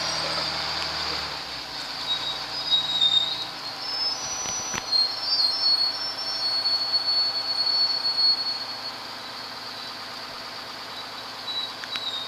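Lattice-boom crawler crane lifting a sailboat in slings, squealing metal on metal in high, drawn-out squeals that come and go. A low engine hum drops away about a second and a half in, and there is a single sharp click about halfway through.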